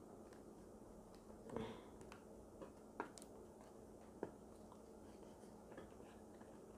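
Near silence with a few faint clicks and rustles of paper as a punched sheet is worked onto a spiral notebook's wire coil.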